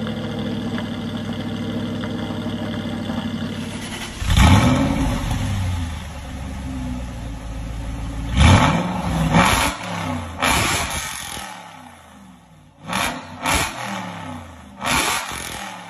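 Aston Martin V8 Vantage's V8 engine and exhaust idling steadily. After a cut, a sharp rev comes about four seconds in, then a second big rev and several shorter throttle blips, the last three quick and short.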